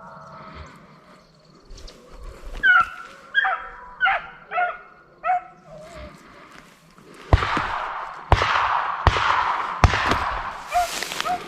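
A hunting dog on a deer drive barking about five times in quick succession, short calls that drop in pitch. A few seconds later a loud rustling starts up, broken by sharp knocks roughly once a second.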